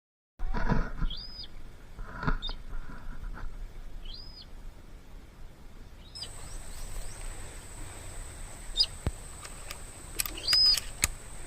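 A small bird repeats a short, high, rising-and-falling call about every two seconds in open rice fields. A few dull knocks come near the start, and a thin steady high whine joins about halfway through.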